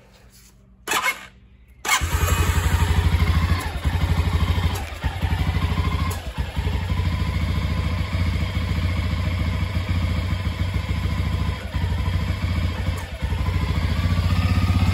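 Can-Am DS250's single-cylinder four-stroke engine running unevenly, from about two seconds in, with its level dipping several times and rising near the end. It is running rough and very rich because the carburetor's jet-needle clip has come off, letting the needle ride up and pass too much fuel.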